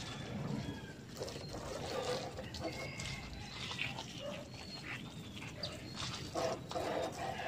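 Water from a garden hose spraying and splashing onto a motorcycle, with short animal calls in the background.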